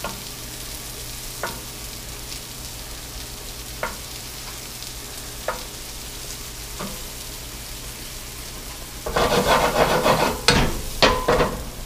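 Mushrooms sizzling as they fry in butter and olive oil in a pan, with single sharp clicks of a utensil against the pan as pieces are flipped over one by one. About nine seconds in comes a louder stretch of clattering and scraping in the pan for a couple of seconds.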